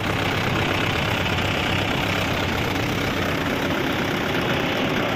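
Mahindra Yuvo tractor's diesel engine idling steadily, heard close up.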